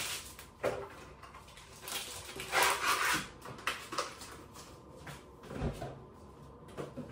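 Kitchen handling sounds: a rustle of cardboard packaging, scattered knocks and clicks on the worktop, then a low thump as the fridge door is pulled open near the end.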